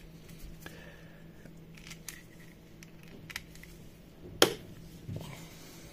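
Small clicks and rattles of crocodile-clip test leads being clipped onto a smart plug's pins, with one sharp click about four and a half seconds in and a softer knock just after, over a faint steady hum.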